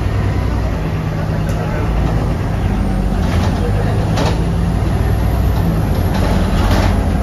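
Volvo B240R city bus engine running steadily under way, heard from inside the passenger cabin as a low hum, with a couple of sharp clicks about three to four seconds in.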